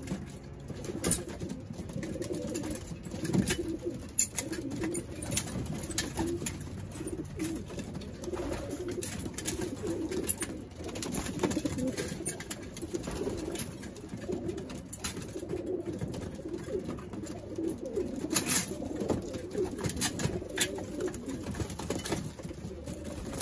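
A flock of racing homing pigeons cooing steadily at close range, with occasional sharp clicks and wing flaps as they jostle at the feed troughs.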